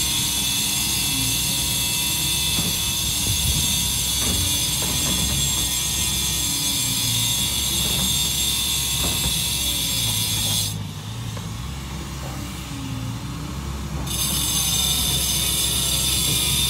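John Deere compact track loader running, with a steady high whine and low rumble and a mechanical squeak and clatter that repeats about once a second. The high whine drops away for a few seconds about two-thirds of the way through, then returns.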